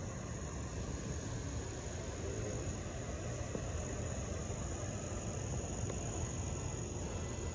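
A steady, high, continuous chorus of insects such as crickets, over a low steady outdoor rumble.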